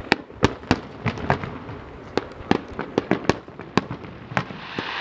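Aerial fireworks shells bursting overhead in a rapid, irregular barrage of sharp bangs and pops, about fifteen in five seconds.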